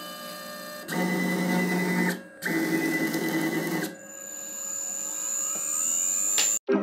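Chinese desktop CNC router whining as its axes move in several short runs, each at its own steady pitch. After that a high whine grows steadily louder, and it stops abruptly near the end.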